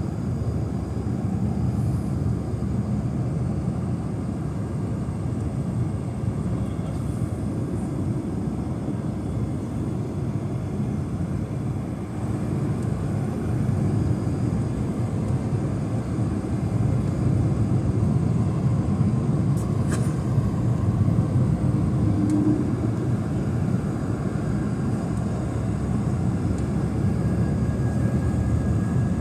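Cabin noise of an Airbus A220 on final approach, heard from a window seat over the wing: a steady, deep rumble of its Pratt & Whitney PW1500G geared turbofans and rushing air, growing a little louder about halfway through.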